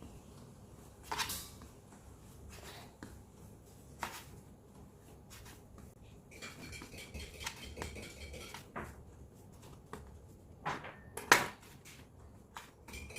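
Scattered knocks and clinks of kitchen bowls and utensils being handled, with the loudest knock about eleven seconds in.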